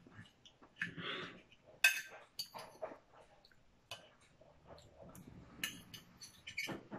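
Metal fork clinking and scraping against a dinner plate while food is picked up, a scatter of light taps and clinks over several seconds.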